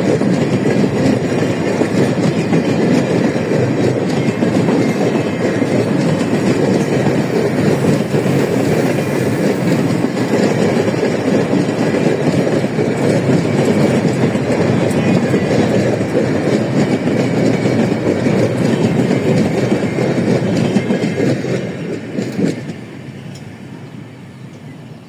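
Empty grain hopper wagons of a freight train rolling past, their wheels clattering over the rail joints. The noise falls away sharply about 22 seconds in as the end of the train goes by.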